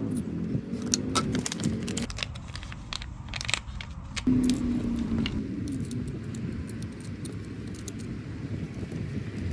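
Small hard parts of a foam cannon clicking and scraping as its orifice is unscrewed and swapped, with a cluster of sharp clicks in the first half. A steady low rumble runs underneath and drops out for about two seconds partway through.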